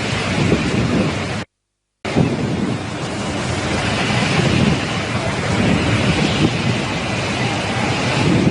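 Cyclone-force wind blowing hard and buffeting the microphone with a low rumble. The sound cuts out completely for about half a second after a second and a half, then the wind resumes.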